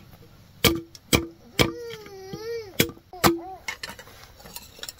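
Five sharp knocks on a hard object, each leaving a short ringing note. A young child's wavering cry sounds between them, about the middle of the stretch.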